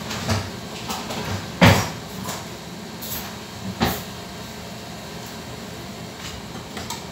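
Kitchen handling noise: several short knocks and bumps, one louder thud about a second and a half in and another about two seconds later, over steady background noise.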